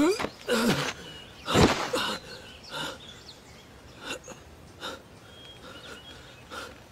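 A man's straining grunts and gasping breaths in a series of short bursts, the loudest about a second and a half in, then fainter ones spaced further apart.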